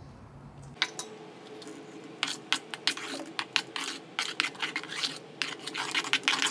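Spoon mixing flour into a thick palmyra-fruit dough in a bowl: irregular clicks and scrapes against the bowl, starting about a second in.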